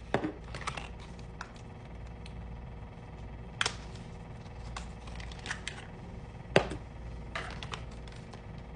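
Scattered clicks and taps of lipstick tubes and their packaging being handled, the loudest one about six and a half seconds in, over a low steady hum.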